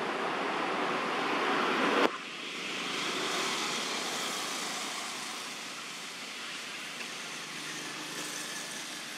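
Steady outdoor background noise, like a distant road's traffic, shifting abruptly about two seconds in from a fuller rush to a thinner, higher hiss.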